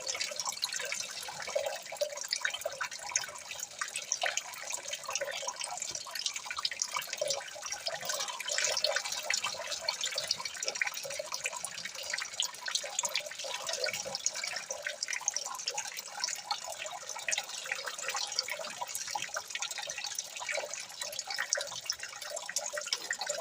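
Water trickling and dripping steadily, a dense patter of many small drops with no pauses.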